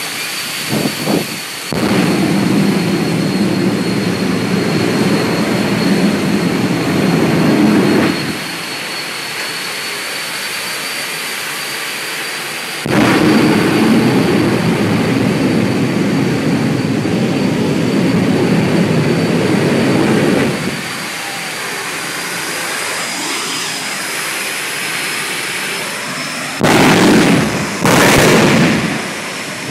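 Jet car dragster's turbine engine running with a steady high whine, its noise swelling louder for two long stretches as it is throttled up. Near the end come two short, very loud blasts.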